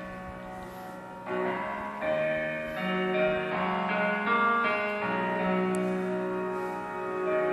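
Royalty-free hip hop beat track played through a homemade 4-foot tower speaker (two woofers, a midrange and a tweeter) driven by a TDA8954 mono amplifier. This stretch is a held, stepping keyboard melody with no drums.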